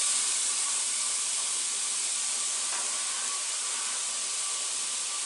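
Diced onions sizzling in hot oil in a stainless steel skillet: a steady hiss that eases off slightly.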